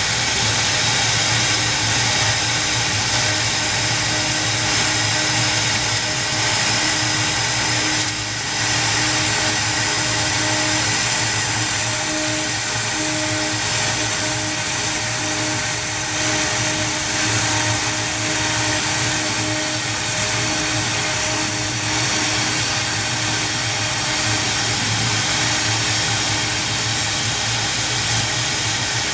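CNC router spindle turning a 1/16-inch end mill at about 18,000 RPM as it mills plywood, a steady whine over a loud hiss. The sound dips briefly about eight seconds in.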